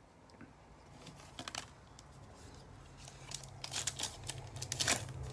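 Foil wrapper of a Panini Mosaic football card pack being torn open and crinkled by gloved hands: a few small crackles at first, then a thick run of crackles from about three seconds in.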